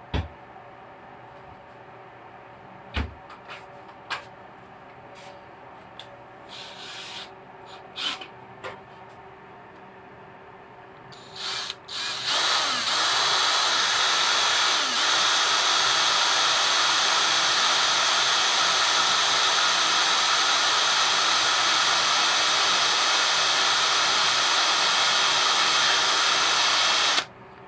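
Cordless battery drill boring into a metal mounting bracket. A few knocks and clicks of handling come first, then two short starts just before halfway, and the drill runs steadily under load for about fifteen seconds before stopping suddenly.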